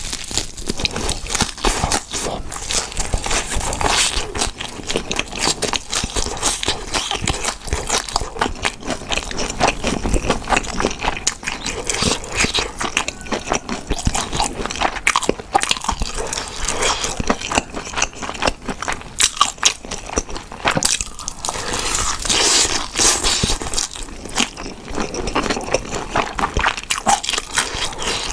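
Close-up eating of crisp, crunchy food: a steady run of crackly bites and chewing.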